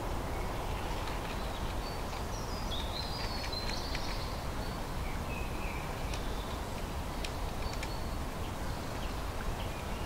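Steady low background noise with a few short, high bird calls about three to five seconds in, and a few faint clicks.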